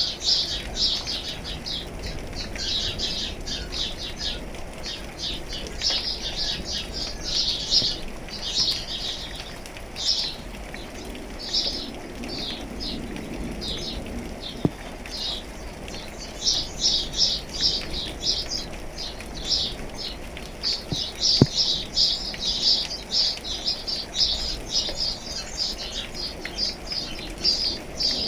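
Small songbirds singing in quick bursts of rapidly repeated high chirps over a steady background hiss of rain.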